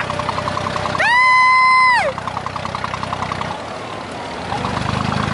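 Abra water taxi's diesel engine running with a steady low drone, and about a second in a loud, high-pitched horn blast lasting about a second, its pitch bending up as it starts and down as it stops.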